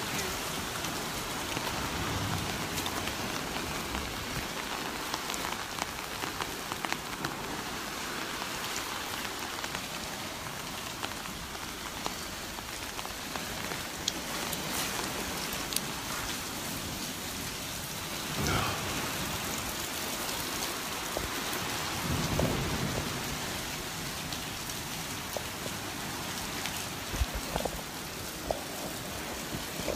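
Steady heavy rain: an even hiss with scattered drip ticks and two brief louder surges a little past the middle.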